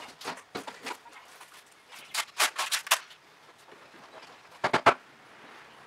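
Aluminium splashback panel knocking and clicking as it is pressed and patted flat against the wall: a run of quick sharp taps about two seconds in, then two louder knocks close together near the end.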